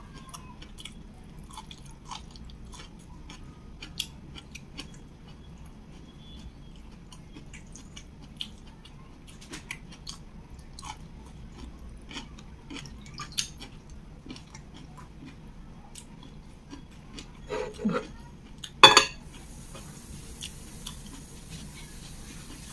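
Close-miked chewing and wet mouth clicks and smacks of eating boiled kailan with sambal. Near the end comes a brief voiced sound, then one loud clatter as a ceramic bowl is set down onto a plate.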